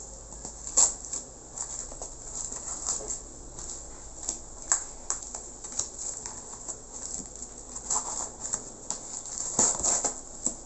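Packaging being handled and opened by hand: an irregular run of crinkling, rustling and sharp crackles of plastic and cardboard, loudest about a second in and again near the end.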